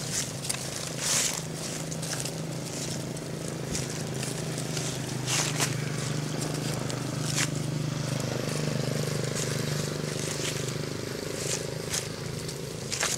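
A steady low engine hum with scattered crackles and rustles of dry leaves underfoot.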